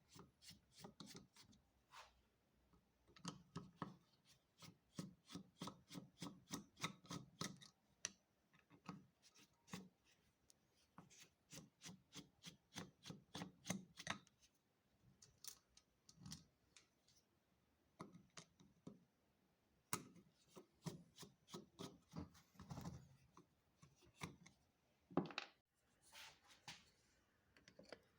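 Rapid rubbing or scraping strokes, about three to four a second, in runs of several seconds broken by short pauses.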